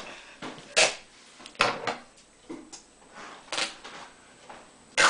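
Green duct tape being pulled off its roll in several short, sharp rips about a second apart, with handling of the tape in between.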